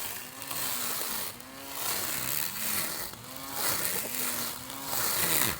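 Small handheld lawn mower's motor speeding up and slowing down again about four times, each surge lasting roughly a second and a half.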